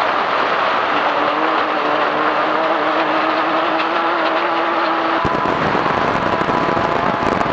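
Off-road desert race vehicle at speed on a rough dirt track, heard from its onboard camera: steady engine and drivetrain noise mixed with wind and gravel rush. The engine note climbs slightly over the first few seconds, and from about five seconds in there are knocks and rattles from the rough ground.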